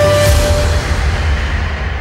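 Background music fading out: held notes break off a little under a second in, leaving a wash that grows quieter and duller toward the end.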